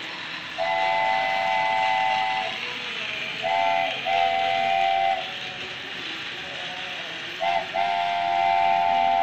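Railking toy steam locomotive's electronic whistle sounding a chord of several tones: one long blast, then a short toot and a longer blast, then another short toot and a long blast, over the steady noise of the train running along its track.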